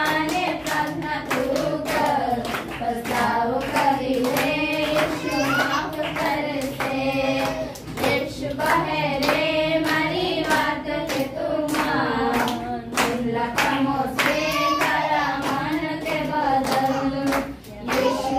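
Three women singing a song together in unison, accompanied only by steady rhythmic hand clapping.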